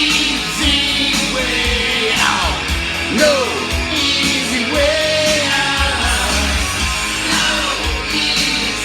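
Rock song with a male vocal and a steady beat, played from a vinyl record.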